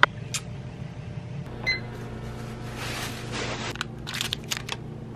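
A single short electronic beep over a steady low hum, followed by a hiss and a few light clicks.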